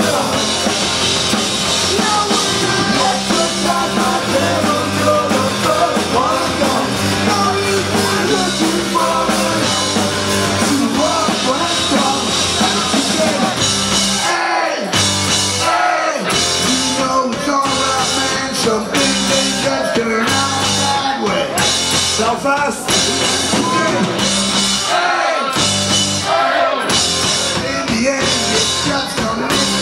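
Live punk band playing with a lead singer over drums, electric bass and guitar. The bass and kick drop out for a moment about halfway through and again near the end.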